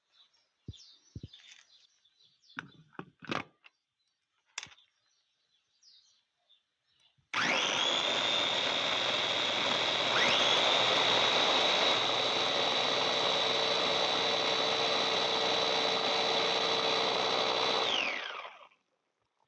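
Electric bowl chopper's motor pureeing hot peppers in water. It starts about seven seconds in with a rising whine, runs steadily for about eleven seconds, then winds down as it is switched off. Before it come a few light clicks and knocks as the lid and motor head go on.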